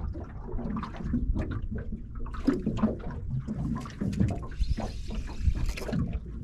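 Sea water slapping and sloshing against the hull of a small drifting boat. About four seconds in, a spinning rod is struck into a bite and the reel is wound, with a brief hiss.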